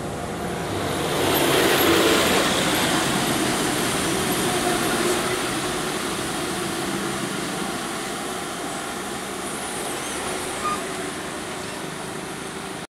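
Road traffic with a truck driving past: engine and tyre noise swells to its loudest about two seconds in, then eases as other vehicles run on more quietly. There is a brief click near the end, and the sound cuts off abruptly.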